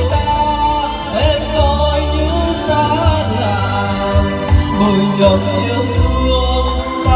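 A song with a sung melody and heavy, steady bass, played loud through a double-subwoofer PA system.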